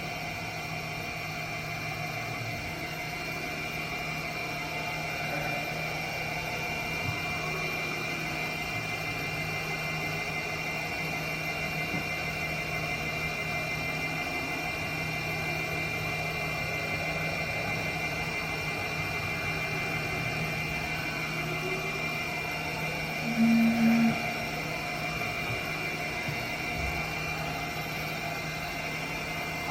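Haas VF-0E CNC vertical machining center running a program: the spindle turns at 1500 RPM while the X, Y and Z axes move together, giving a steady hum with a constant high whine. A brief, louder tone sounds about 23 seconds in.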